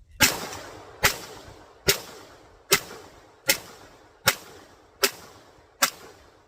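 Eight 9mm pistol shots from a 3D-printed MAC-11-style pistol, fired one at a time a little under a second apart, each followed by a fading echo. The pistol cycles every round without a stoppage.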